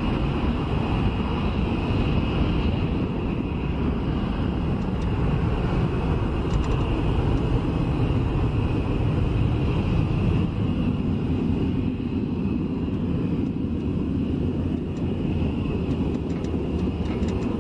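Jet noise from Panavia Tornados climbing away after take-off on afterburner, their twin RB199 turbofans giving a steady, loud rumble that eases slightly in the second half as they draw away.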